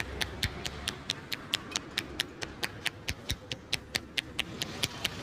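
Quick, even hand taps or slaps of a massage, about five a second.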